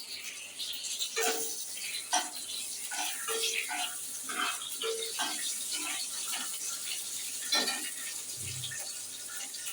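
Whole cumin seeds and bay leaves sizzling in hot mustard oil in a kadai: a steady hiss with frequent small crackles as the tempering fries.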